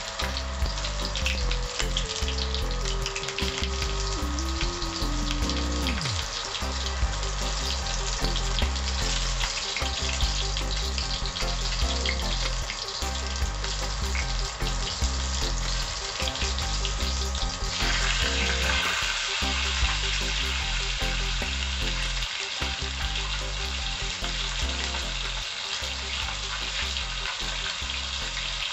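Dried fish (lamayo) frying in hot oil in a stainless steel pan: a steady sizzle of bubbling oil, turning hissier about two-thirds of the way through.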